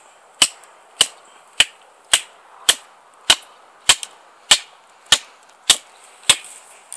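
Wooden baton striking the spine of a large knife, driving the blade down through a green red shank stick to split it: a steady series of sharp knocks, about eleven strikes at a little under two a second.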